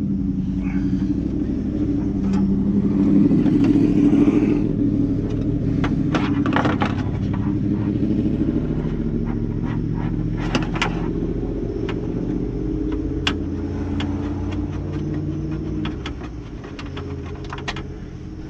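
Light metal clicks and scrapes as a window regulator bracket and its bolts are worked into place inside a car door. Underneath runs a steady low rumble.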